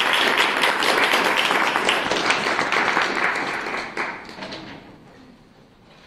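Audience applauding, a dense patter of clapping that dies away about four seconds in.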